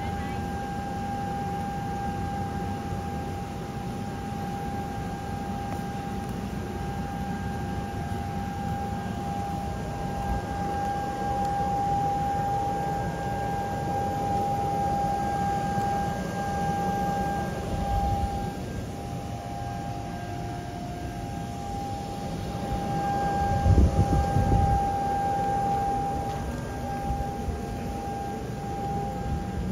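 Electric inflatable blower running steadily as it fills a vinyl water slide: a constant whine over a rushing of air. A couple of low bumps come past the middle, the louder about two-thirds in.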